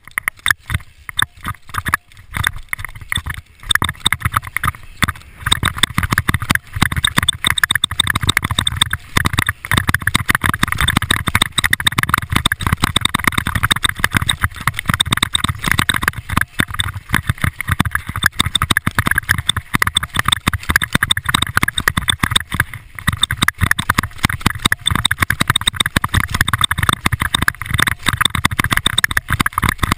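Continuous dense rattling and clatter of a mountain bike ridden fast down a rough dirt trail, with tyre noise on the dirt, building up over the first few seconds.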